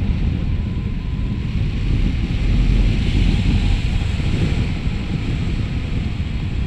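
Steady, loud wind rumble buffeting the microphone of a paramotor pilot's camera as he descends low in flight, with no clear engine note.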